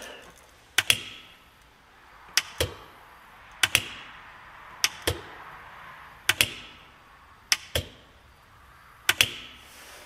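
A 1995 Ford 7.3 Power Stroke glow plug relay on a bench test, clicking in and out as it is switched on and off: sharp double clicks, about seven times. It clicks but passes no current, the sign of a failed relay.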